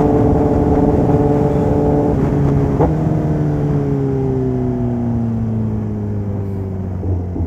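Kawasaki ZX-10R inline-four engine through a full aftermarket exhaust system, holding steady revs for about two seconds, then falling steadily in pitch over the next four seconds as the revs drop off. A brief sharp click comes about three seconds in.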